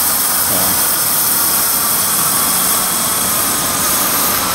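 Steam hissing steadily from the vertical boiler's pop-off safety valve, which is partly lifting as the boiler sits near its 90-pound setting.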